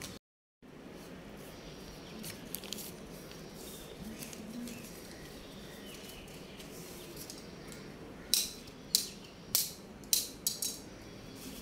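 A quick run of about six sharp, short crisp hits, one every half second or so, a little after two-thirds of the way through, over a steady low background hiss.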